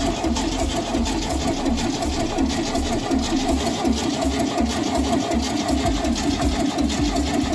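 A 1971 VW Bus's air-cooled flat-four being turned over by its starter motor in a steady rhythmic chug, without firing. The engine is cranked to build oil pressure, with the oil warning light still on.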